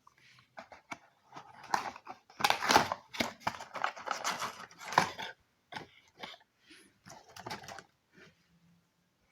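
Single-dose stick sachets of cough syrup being handled: crinkling, rustling packaging with irregular clicks and crackles, loudest in the middle and fainter near the end.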